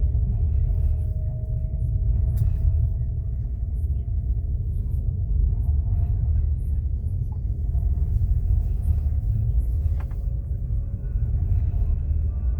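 Steady low rumble of a passenger train in motion, heard from inside the carriage, with a faint whine that slowly rises in pitch and a few light clicks.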